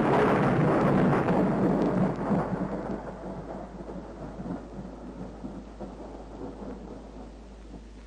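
A loud rumbling crash of noise, strongest at the start and slowly dying away over several seconds.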